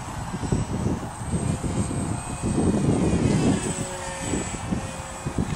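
Radio-controlled model airplane flying, its motor giving a thin high tone that drifts slightly in pitch, under heavy wind buffeting the microphone.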